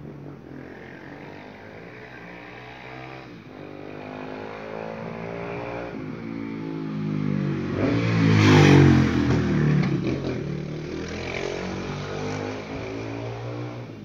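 A motor vehicle passing close by: its engine builds, is loudest a little past the middle, then fades away.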